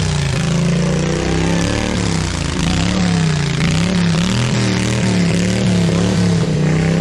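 Tractor engine running hard under load, its revs rising and falling over and over.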